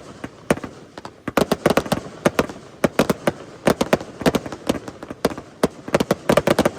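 Aerial fireworks bursting: many sharp cracks and bangs going off in quick, irregular clusters, as from crackling shells.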